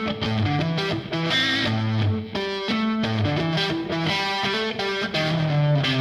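Background music led by a distorted electric guitar playing a riff of changing notes.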